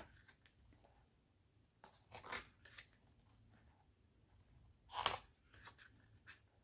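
Glossy photo book pages being turned and handled: a few soft, short paper rustles, the clearest about five seconds in.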